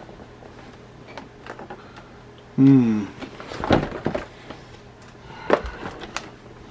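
Toy packaging being handled while a blaster is worked free of its box ties, with scattered sharp clicks and knocks. A short vocal sound, falling in pitch about two and a half seconds in, is the loudest thing.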